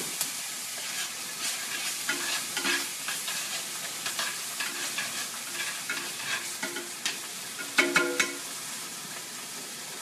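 Ginger garlic paste sizzling in hot oil in a frying pan while a utensil stirs it, scraping and clicking against the pan, with a louder run of clatters about eight seconds in.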